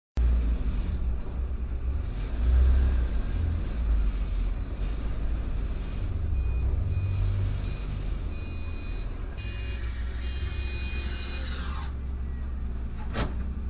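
Steady low rumble of a car's engine and tyres on a slushy road, heard from inside the cabin. A thin high whine comes and goes in the second half and ends in a falling glide. There is one sharp click near the end.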